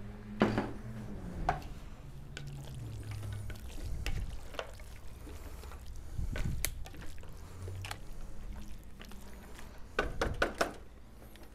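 Wooden spatula stirring beef, vegetables and cashews in a starch-thickened sauce in a stone-coated pot. Wet squishing, with scattered knocks of the spatula against the pot and a quick run of knocks about ten seconds in.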